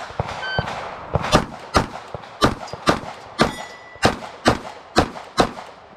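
Glock pistols firing a rapid string of sharp shots, about three a second, with a short electronic beep about half a second in.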